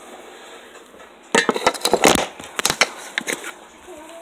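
Rustling and crackling close to the phone's microphone, a dense burst of clicks and scrapes starting about a second in and lasting about two seconds: handling noise as the phone is moved about and covered.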